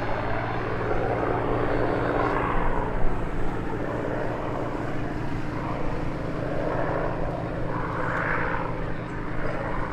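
P-51D Mustang's Merlin V12 engine and propeller in flight: a steady low engine note, with a broader rushing sound that swells and fades several times as the aircraft flies its display.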